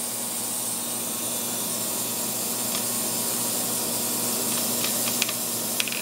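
Ultrasonic cleaner running with a carburetor in its bath: a steady hiss over a low hum. This is the carburetor being cleaned to clear a clogged jet.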